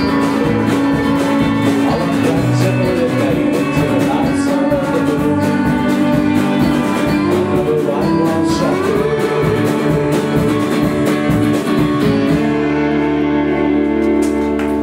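Live band playing a song on acoustic and electric guitars, bass and drums, with a lead vocal. About twelve seconds in the drumming stops and the band holds a final chord, which rings on.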